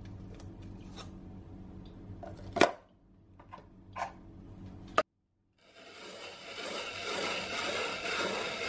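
Hand-cranked ice shaver: a few sharp knocks and clicks as the block of ice is set into the shaver and the top fitted, the loudest about two and a half seconds in. Then, from about six seconds in, a steady scraping, crunching grind as the blade shaves the ice into the bowl.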